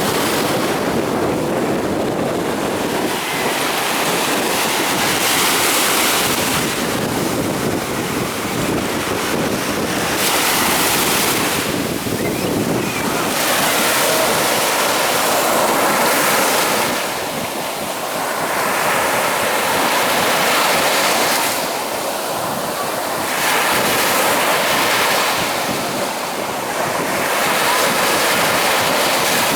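Stormy sea surf: waves breaking one after another, the roar swelling and easing about every five or six seconds, with wind on the microphone.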